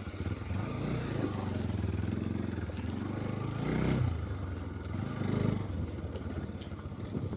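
A vehicle engine running while under way, its pitch rising briefly about four seconds in and again about a second and a half later as the throttle opens.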